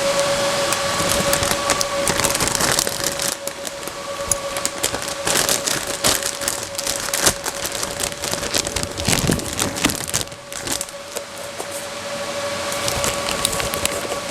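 Handling noises: irregular crackling, clicks and knocks, over a steady high-pitched hum that fades in the middle and returns near the end.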